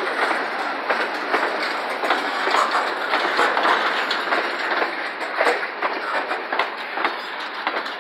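Freight train cars (covered hoppers, then a tank car) rolling past at close range. A steady rolling noise is broken by many sharp clicks and rattles as the wheels pass over the track.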